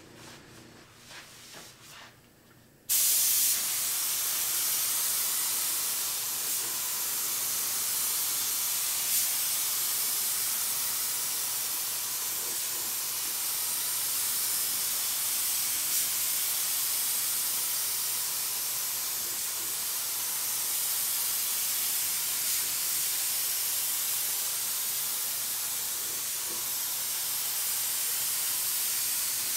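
Gravity-feed compressed-air spray gun spraying primer: a steady, loud hiss of air and atomised paint that starts abruptly about three seconds in and holds without a break.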